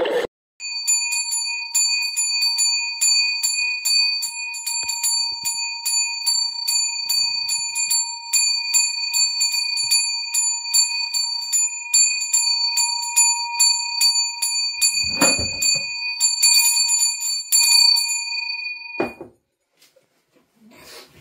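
A small metal handbell rung steadily and rapidly, its clapper striking about three times a second so that the ringing never dies away. There is a dull knock about fifteen seconds in, and the ringing stops suddenly a couple of seconds before the end.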